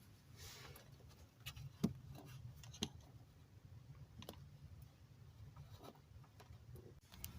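Quiet room with a low steady hum and a few faint, scattered light clicks and rubs, like something being handled.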